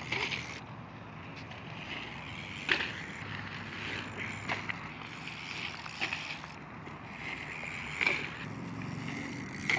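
BMX bikes rolling over a dirt and gravel trail: a steady low rolling noise, broken by a few sharp knocks, the loudest about three seconds in and again about eight seconds in.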